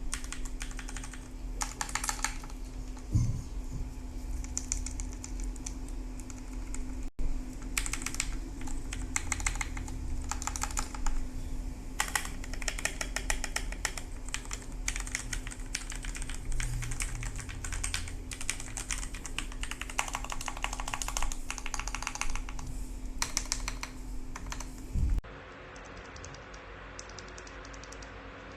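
Typing on a mechanical keyboard fitted with Gateron Milky Yellow Pro linear switches, in runs of rapid keystrokes with short pauses between. Near the end the typing becomes quieter and duller.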